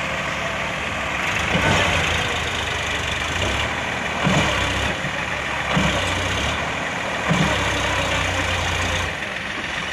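Heavy diesel machinery engine running steadily, with four brief louder bumps about a second and a half apart.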